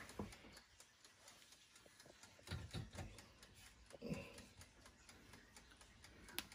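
Near silence with a few faint, short knocks and taps as pieces of salmon are set by hand into an air fryer basket, a sharper click near the end.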